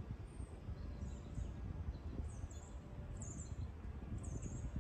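A small bird repeatedly giving short, high chirps, about one a second, over a low outdoor rumble.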